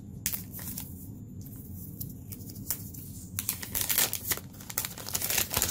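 Clear plastic protective film being peeled and slid off a new smartphone, crinkling in irregular bursts, densest in the last two seconds.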